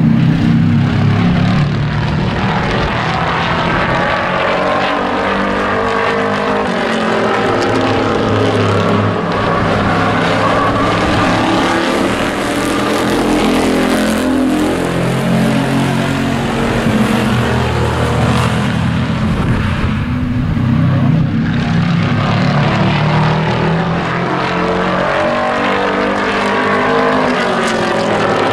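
Several hobby-class pickup race trucks running hard around a paved oval, their engines overlapping, with the engine note rising and falling as they accelerate and lift through the turns.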